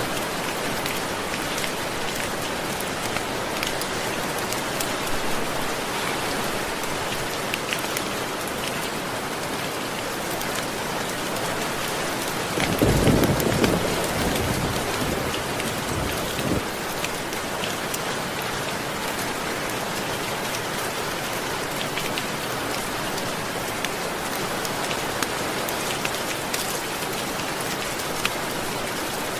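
Steady rain falling, with a short low rumble of thunder near the middle and a fainter rumble a few seconds after.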